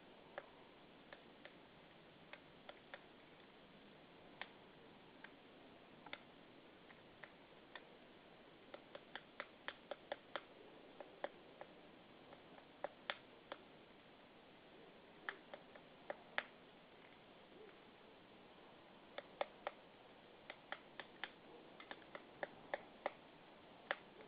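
Woodpecker knocking on wood: single sharp taps at irregular intervals, sometimes several in quick succession, with pauses of a second or more between.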